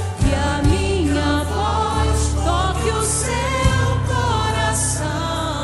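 Gospel worship song: a woman singing into a microphone over a backing track, with choir-like backing voices.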